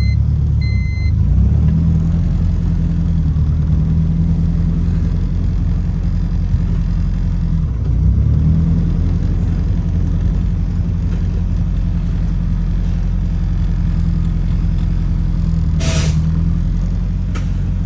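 Honda B20 four-cylinder engine idling steadily, its note dipping briefly and recovering about eight seconds in. A beeping chime sounds twice at the start, and near the end comes a short harsh noise, the sound the car makes when reverse is tried and the gearbox won't engage it.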